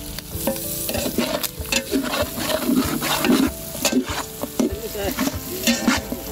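A long-handled metal spatula scraping and tossing chunks of chicken in a pepper masala around a large metal pot in repeated, uneven strokes. The meat sizzles as it dry-fries.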